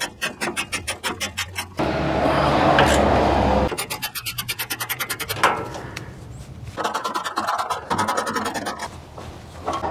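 Hand ratchet with a hex bit socket clicking rapidly in runs as M8 bolts are tightened into the nut plates of a stainless-steel catalytic converter shield. A louder, steady rasping takes over for about two seconds near the start.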